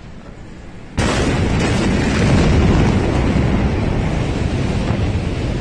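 Explosion of the ammonium nitrate stored in Beirut's port: after a lower steady noise, the blast hits suddenly about a second in, and a loud, dense rumble heavy in the low end carries on after it.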